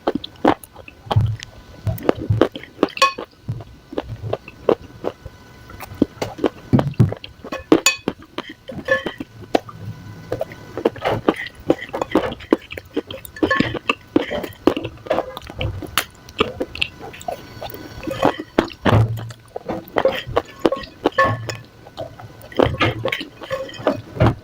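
Dry clay crumbs crunching and crackling in a long run of irregular, crisp crunches, some with a dull low thud.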